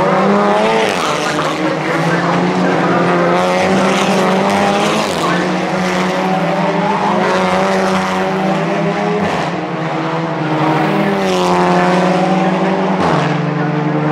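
Audi TT Cup race cars' turbocharged four-cylinder engines running hard at full throttle, the pitch climbing through each gear and dropping back at the shifts, with more than one car's engine heard at once.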